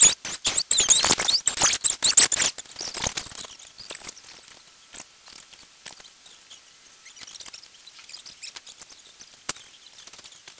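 Knocks and rubbing from the camera being handled close to the microphone for the first few seconds, mixed with quick high-pitched squeaky chirps. After that it settles to faint scattered clicks and occasional high chirps.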